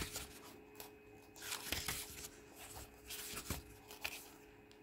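Pages of a printed book being turned by hand: several soft paper rustles and swishes.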